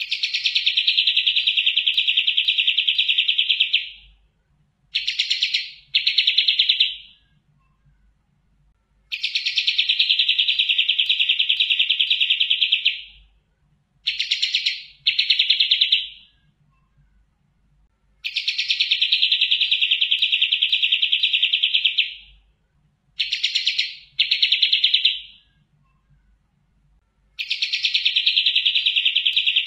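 Kapas tembak, a triller songbird, singing a long rapid trill of about four seconds followed by two short trill bursts, the same sequence repeating about every nine seconds.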